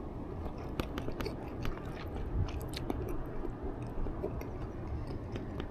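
A person chewing food close to the microphone, with many small crisp clicks of crunching over a steady low rumble. The food is charred.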